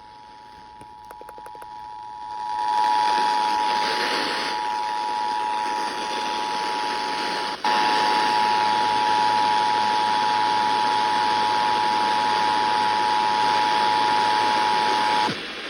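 Emergency Alert System attention signal over FM radio: the two-tone 853 and 960 Hz alarm held steady, with a brief dropout about halfway and a cut-off just before the end. Radio hiss swells in behind it about two and a half seconds in.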